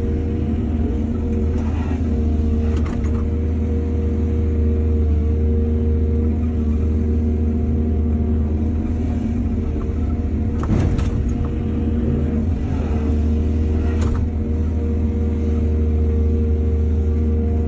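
Excavator's diesel engine running steadily under load, with three brief clunks spread through.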